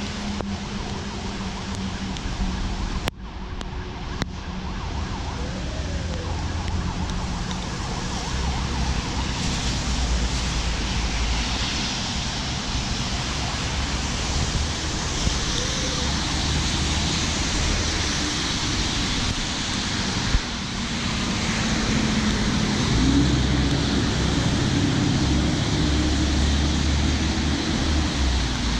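Wind buffeting the microphone over traffic on a wet road: tyre hiss and the engines of passing cars, with the hiss swelling through the middle.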